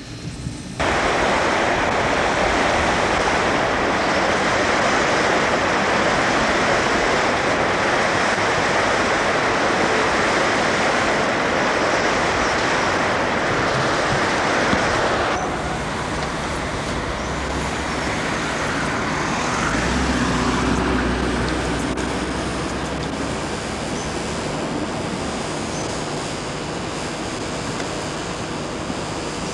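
Steady rush of river water pouring over a low weir, loud and even, starting suddenly about a second in and dropping somewhat about halfway through. A low rumble joins it briefly about two-thirds of the way through.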